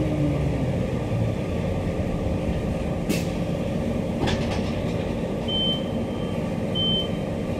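Inside a Queensland Rail electric multiple unit carriage: the train's steady low rumble, with a falling motor whine that dies away in the first half second. Two sharp clicks come in the middle, and two short high beeps near the end.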